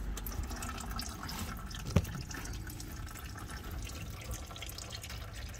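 Used motor oil dripping and trickling from an upside-down oil filter into a drain pan, with a single knock about two seconds in.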